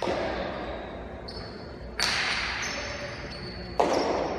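Jai alai pelota cracking against the walls of a fronton, three sharp hits about two seconds apart, each ringing out in a long echo.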